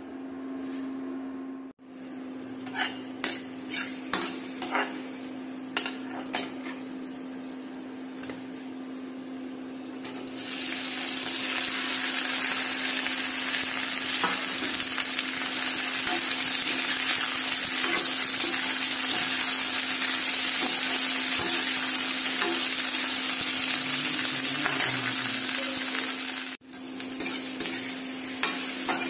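Chopped okra frying in a steel kadhai and stirred with a steel ladle: a few sharp clinks of ladle on pan early on, then a loud steady sizzle from about ten seconds in. A steady low hum runs underneath.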